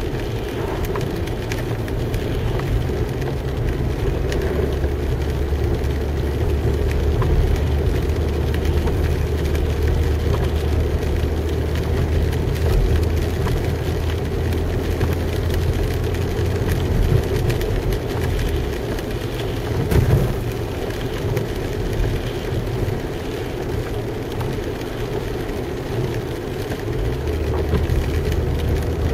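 Car driving on a wet road, heard from inside the cabin: a steady engine and road drone with tyre hiss. The low drone eases off about eighteen seconds in and comes back near the end, and there is a single knock about twenty seconds in.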